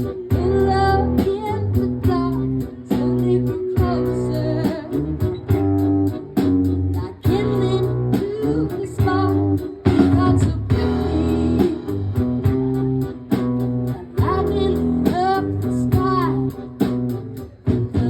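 Live music in an instrumental passage between verses: guitar and bass playing with a steady pulse.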